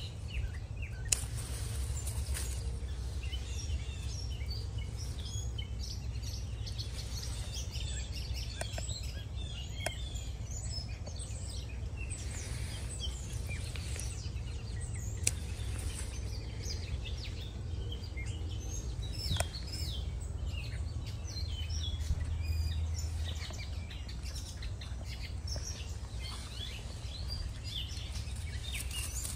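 Small birds chirping and twittering over a steady low rumble, with a few sharp snips of garden scissors cutting bean stems.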